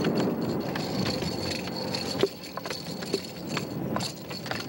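A freshly landed bonito thrashing on a boat's deck: a short rush of noise, then from about halfway in a string of sharp knocks, about two a second, as the fish slaps the deck and its lure clatters.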